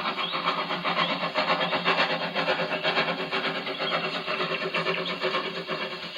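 Steam train running, a dense, fast rhythmic clatter of wheels and chuffing.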